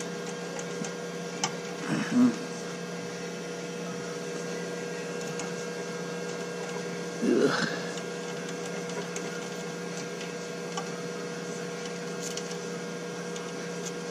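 Steady electrical hum of a large-format inkjet printer standing open in maintenance mode while its capping station is swabbed clean. Two brief voice-like sounds come about two seconds in and again about seven seconds in.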